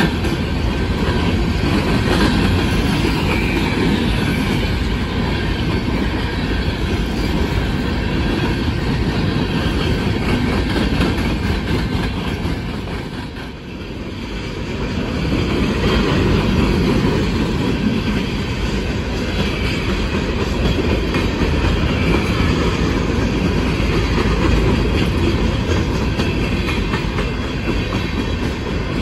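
Union Pacific coal train's freight cars rolling steadily past: a continuous rumble and clatter of steel wheels on the rails. The sound dips briefly about halfway through.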